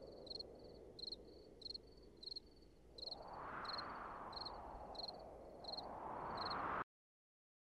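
Cricket chirping in a steady rhythm, about three short trilled chirps every two seconds. A rushing noise swells up twice from about three seconds in, and all sound cuts off abruptly near the end.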